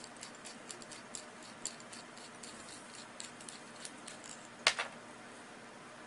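Light, scattered clicks and ticks of small metal parts being handled as a PL-259 coax connector is twisted off the end of the coax, with one sharper click about three-quarters of the way in.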